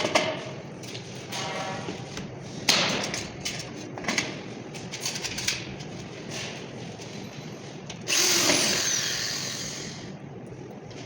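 Power drill running in several short bursts, driving screws to fix the diffuser grill; the longest burst, about eight seconds in, ends with a high whine that falls in pitch.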